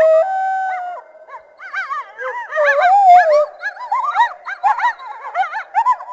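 A group of coyotes calling together. One holds a steady howl for about the first second, then many short yips that rise and fall in pitch overlap in a busy chorus.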